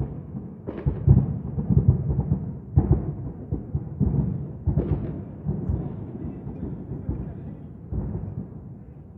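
Fireworks shells bursting in a rumbling series of deep booms that echo and overlap, several distinct bursts a second or two apart, dying down toward the end.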